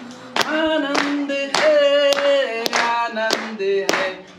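Voices singing a folk song to steady rhythmic hand claps, a little under two claps a second.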